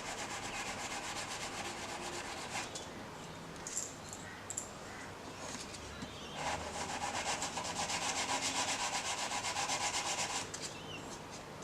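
Hand file working the cut end of a 1 mm metal wire held in pliers, in quick back-and-forth strokes, flattening it so the wire makes a smooth rivet. It comes in two spells, the second one louder, starting about six seconds in, with a few light clicks in the pause between.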